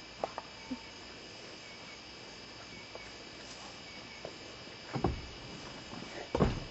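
Night crickets chirring steadily in several high, even tones. Two dull thumps come near the end, about a second and a half apart.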